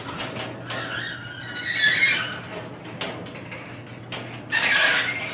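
Sectional garage door moving, with squealing and squeaking from its rollers and hinges over a steady low hum. The squeals are loudest about two seconds in and again near the end.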